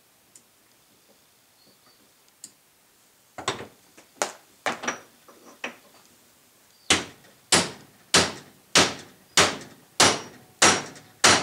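Hammer blows on steel as a U-joint bearing cup is driven home in a driveshaft yoke, without a press. A few lighter taps come first, then a steady run of about eight hard, evenly spaced blows, each with a short metallic ring.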